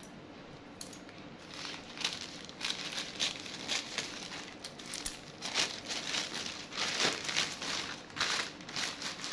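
Thin black plastic courier bag crinkling and rustling as it is cut open with scissors and pulled apart by hand, in repeated short bursts beginning about a second and a half in.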